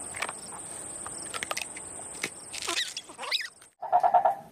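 Insects droning at a steady high pitch, with scattered clicks and a few rising and falling chirps; the drone cuts off about three-quarters of the way in, and a short buzzy tone follows.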